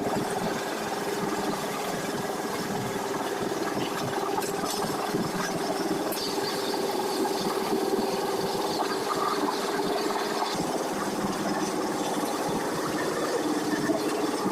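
A vehicle running steadily: a constant hum over an even rumble, with light scattered rattles.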